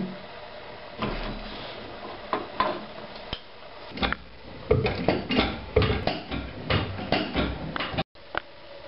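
Metal wrench clicking and clinking on the nut of a car's tie-rod end. The clicks come sparsely at first, then quickly and irregularly from about four seconds in.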